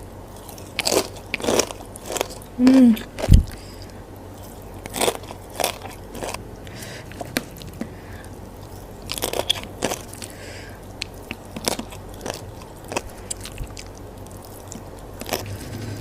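Close-up crunching and chewing of crispy fried potato sticks and dendeng (dried spiced beef) with rice. The crunchy bites come at irregular intervals, with a short low hum from the eater about three seconds in.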